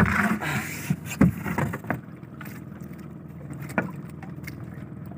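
Paddling a small outrigger banca: a few knocks of the paddle against the hull and some water noise in the first two seconds, one more knock later, over a steady low wash of wind and sea.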